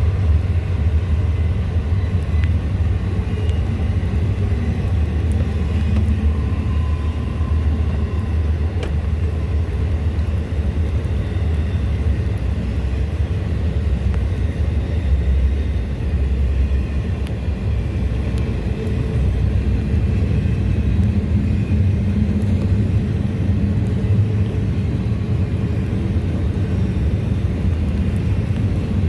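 Norfolk Southern freight train rolling past, its wheels making a steady low rumble on the rails, with heavy rain hissing throughout.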